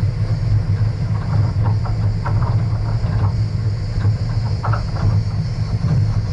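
Vehicle driving over a rough dirt road: a steady low rumble of engine and tyres, with scattered short rattles and knocks as it jolts over the bumpy gravel surface.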